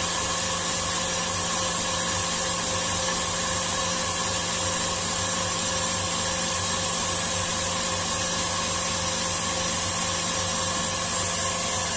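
Electric stand mixer running steadily at high speed, its wire whisk beating egg whites into an Italian meringue, a constant motor whir with several steady tones.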